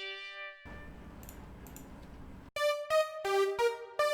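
Arturia CS-80 V software synthesizer playing a lead preset: a held note fades out, a faint low hum fills a short gap, then a quick run of short notes starts about two and a half seconds in.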